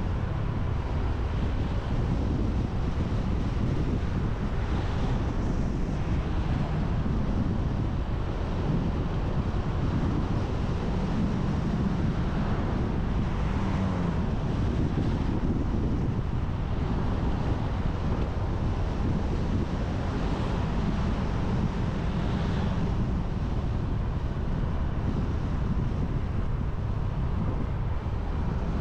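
Steady rush of wind across the microphone of a camera on a moving motorbike, with the motorbike's engine and tyre noise running underneath.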